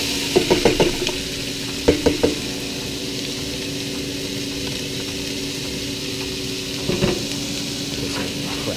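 Diced vegetables sizzling steadily in hot coconut oil in a stainless steel pot, with a stirring utensil knocking against the pot in quick clusters about half a second and two seconds in, and once more about seven seconds in.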